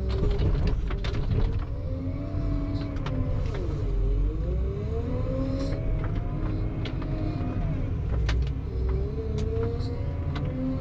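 Farm tractor working, its engine speed rising and falling with a pitch that dips sharply about four seconds in, over a heavy low rumble, with scattered clanking knocks.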